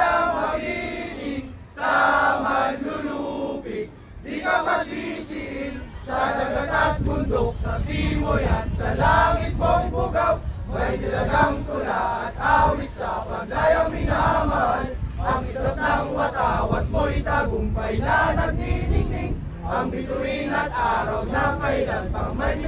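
A crowd of protesters chanting and shouting together in unison, many voices at once. A low rumble joins beneath the voices about six seconds in.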